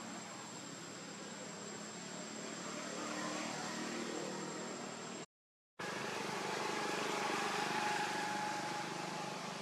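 Steady outdoor background hiss, with a faint high steady whine in the first half. It drops out completely for about half a second just past the middle, at an edit cut, then carries on.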